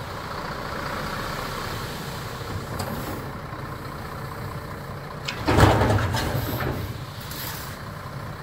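A motor vehicle's engine running steadily with a low hum, swelling louder for about a second around five and a half seconds in.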